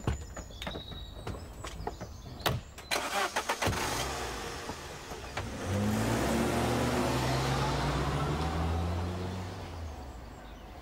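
Car doors shut with sharp thumps, then a Saab 900's engine is started and runs. It holds steady for a few seconds and fades away near the end.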